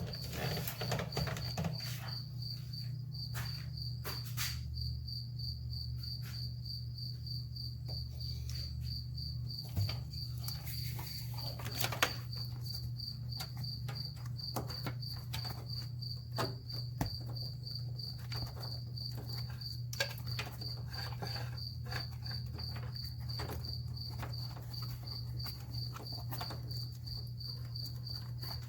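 Crickets chirping in a steady, evenly pulsed trill throughout, over a low steady hum. Scattered clicks and knocks come from the wiring harness being worked loose, the sharpest about halfway through.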